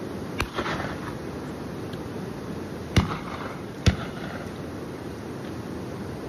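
Shotgun shots: a fainter one near the start, then two sharp reports less than a second apart about halfway through, each trailing off in a short echo. A steady background hiss runs underneath.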